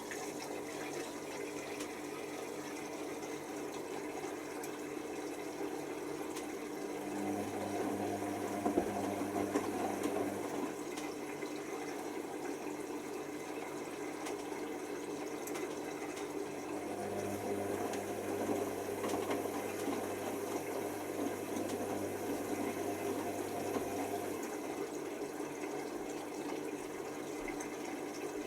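Hoover Nextra washer dryer in its wash cycle: water runs and sloshes in the drum throughout. The drum motor turns the drum twice, starting about 7 and 17 seconds in, with a few light knocks during the first turn.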